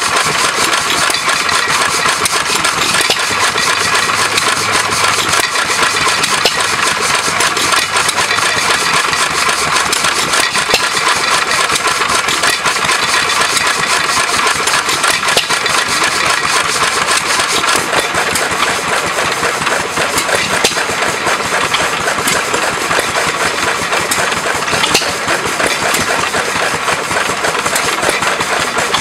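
Small antique stationary hit-and-miss engine running, with its flywheel spinning, making a steady, busy mechanical clatter.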